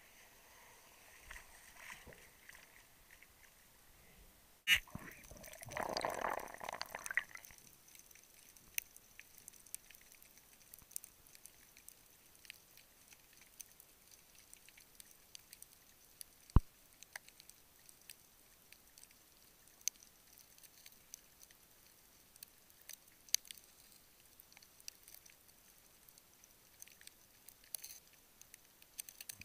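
Choppy sea water at the surface, a sharp click as the camera goes under, then a two-second rush of bubbles from the dive. After that comes the quiet underwater sound, broken by scattered sharp clicks and crackles.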